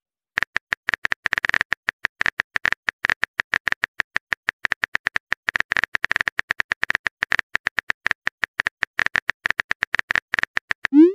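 Phone keyboard key-tap sound effect: rapid, irregular clicks as a chat message is typed letter by letter.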